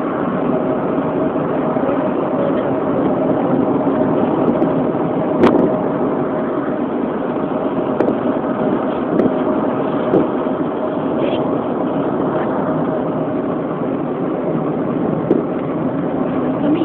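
Steady engine and road noise heard from inside a moving car, with a steady hum running under it. A short click or knock about five and a half seconds in, and another near the end.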